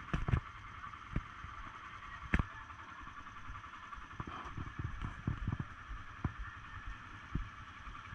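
ATV engines idling with a steady hum and an uneven low rumble, broken by a few sharp clicks, the loudest two near the start and about two and a half seconds in.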